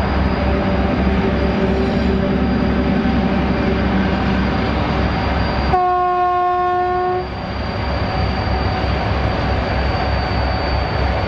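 Two class 120 diesel locomotives working hard under load with a freight train, their 14D40 two-stroke V12 engines giving a low, pulsing throb. About six seconds in comes a single steady locomotive horn blast lasting about a second and a half, after which the engine sound resumes a little quieter.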